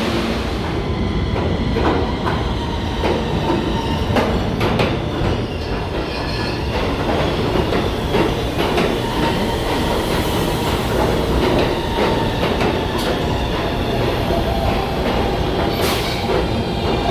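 New York City subway train moving through the station, its wheels clicking over rail joints and squealing, with a steady whine of high tones.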